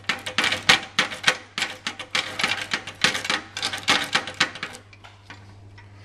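Rapid metallic clicking and rattling of a wafer rake being worked in and out of a mailbox wafer lock. It stops about five seconds in, leaving a low hum.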